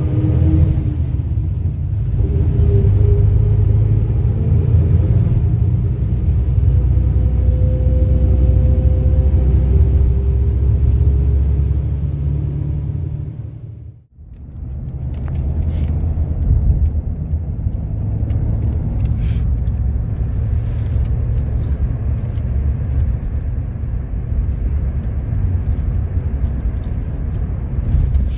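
Steady low rumble of a moving vehicle, which fades away to a brief dip about halfway through and then comes back.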